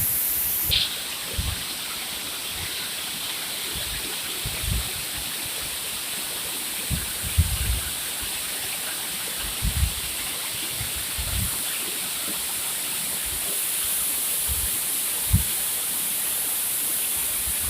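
Waterfall rushing down over several tiers of rock: a steady hiss of falling and foaming water, broken by occasional short low thumps.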